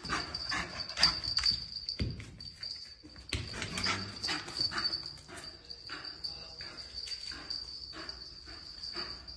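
Footsteps and a small dog's paws crunching and scuffing on grit and debris over a bare concrete floor, in an irregular patter, over a steady high-pitched tone.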